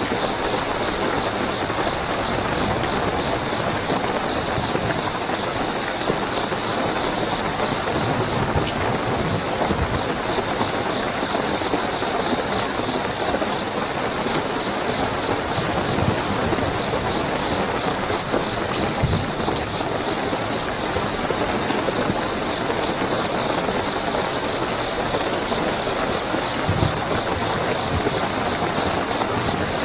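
Steady heavy rainfall with night crickets giving a continuous high-pitched trill over it.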